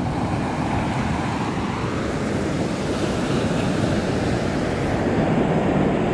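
Surf washing on the beach with wind buffeting the microphone: a steady, unbroken rush of noise.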